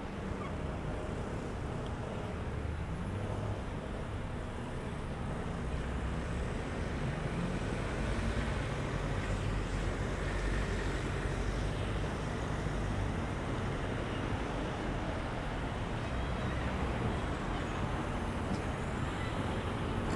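Busy city road traffic heard from a bicycle: cars, taxis and double-decker buses running past in a steady wash of engine and tyre noise, a little louder around the middle as a bus goes by close.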